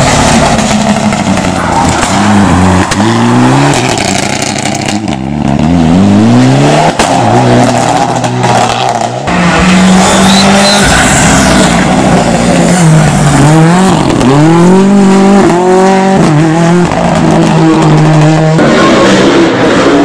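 Race cars climbing a mountain road one after another at full throttle. Each engine revs up and drops back at every gear change, rising and falling over and over, with a few abrupt changes where one car gives way to the next.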